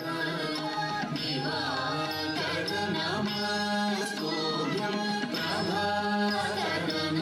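Carnatic music: a gliding melody over a steady drone, with percussion strokes.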